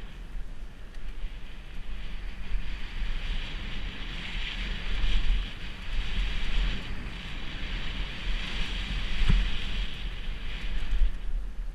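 Wind rushing over a helmet-mounted camera's microphone, with the low rumble of a Kona Process 167 mountain bike's tyres rolling down a dry dirt trail, swelling and dipping with speed. One sharp knock about three-quarters through.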